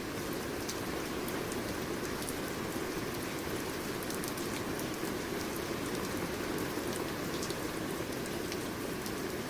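Steady rain falling, with the patter of scattered individual drops on a surface.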